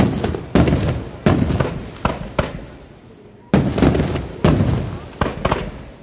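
Aerial firework shells bursting: about ten sharp bangs in quick succession, each trailing off in a rumbling echo, with a lull of about a second before the bursts resume.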